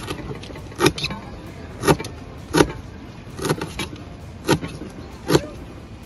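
Chef's knife chopping lemongrass on a plastic cutting board: about seven sharp knocks, irregularly spaced, roughly one a second.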